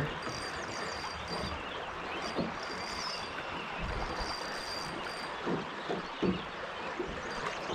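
Steady hiss of rain and flowing river water around a drift boat, with a few soft knocks and a faint high thin tone that comes and goes.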